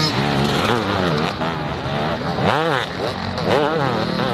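Dirt bike engine revving up and down repeatedly under throttle on a muddy climb, with sharp rises in pitch about halfway through and again near the end.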